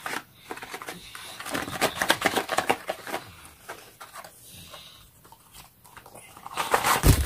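Crackling and rustling of packaging as a cardboard game box is handled and opened by hand, with a louder rustle near the end.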